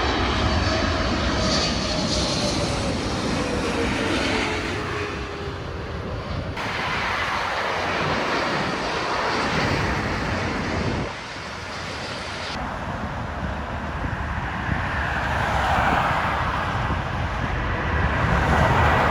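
Jet airliner engines heard from the ground as a steady, loud noise, with a falling whine in the first few seconds. The sound changes abruptly about six and a half and again about twelve and a half seconds in.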